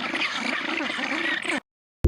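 A chorus of many small animals calling over one another in quick overlapping chirps, cut off abruptly about a second and a half in.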